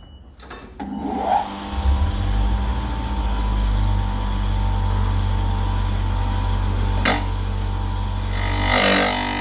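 Benchtop wet tile saw switched on about a second in, its motor spinning up and then running steadily as a marble slab is pushed into the blade, with a grinding cut. A short click about seven seconds in.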